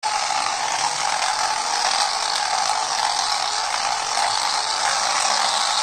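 Small electric motor and plastic gears of a toy radio-controlled car running, a steady buzzing whir.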